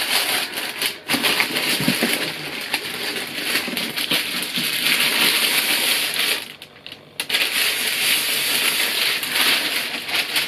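Tissue paper rustling and crinkling as it is unfolded and lifted away from a shoe box, with a brief pause about two-thirds of the way through.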